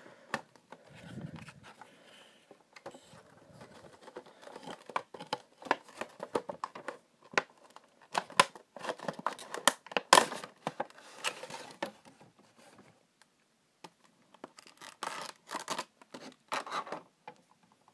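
A Funko Pop cardboard window box being opened by hand and the figure and plastic insert pulled out. Irregular scraping, crinkling and clicking of cardboard and plastic come in bursts, with a short pause near the middle.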